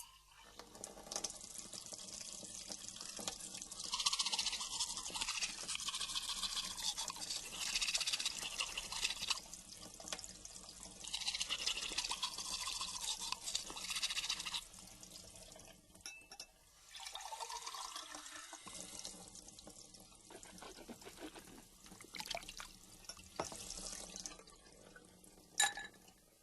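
Recorded water sound effects: dripping and splashing water that swells and fades in hissy waves, with faint sustained tones underneath.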